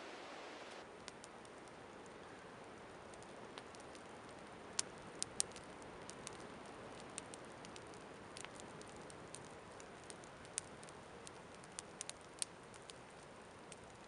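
Wood campfire burning, with scattered sharp crackles and pops over a faint steady hiss.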